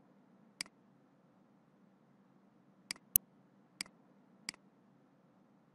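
Five sharp, isolated clicks of a computer mouse and keyboard, the loudest about three seconds in, over a faint steady background hiss.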